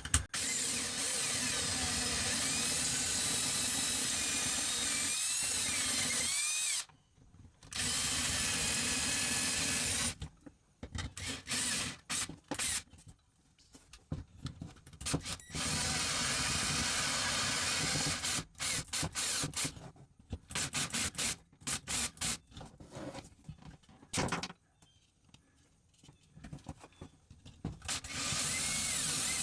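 Power drill with a 3/16-inch bit drilling out the rivets of a window latch clip: two long steady runs, then many short on-off bursts, then another steady run near the end.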